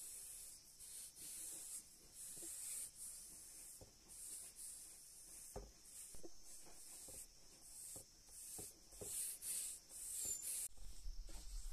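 Faint repeated scraping strokes, about one or two a second, with a few light knocks between them.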